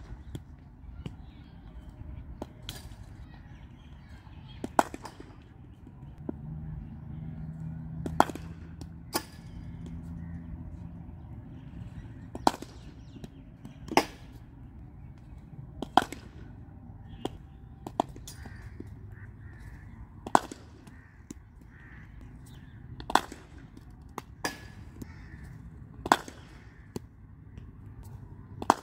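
Sharp knocks of a hard cricket ball struck by a bat and bouncing on a concrete practice pitch, repeating about every two seconds through a run of throw-downs. A low hum rises in the background for a few seconds near the middle.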